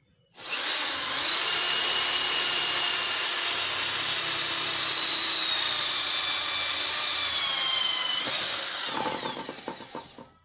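Doliz BA670 550 W corded impact drill running at full speed, boring a hole in wood with a 10 mm spade bit. It starts about half a second in with a high, steady whine, sags slightly near the end, then winds down as the trigger is released.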